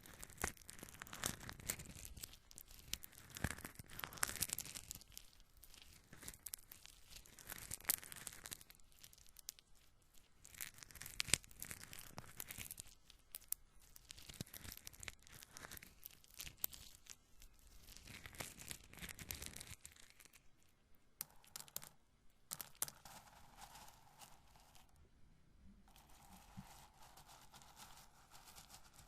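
Roasted corn kernels handled and rubbed together close to the microphone, a soft, dense crackling and rustling that swells and fades in waves. After about twenty seconds the crackling thins to scattered clicks.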